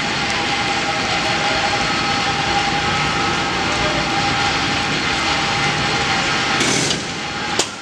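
San Francisco cable car turning on the street turntable: a steady mechanical whir with a thin sustained tone running through it. Near the end comes a brief hiss, then the level drops and there is one sharp click.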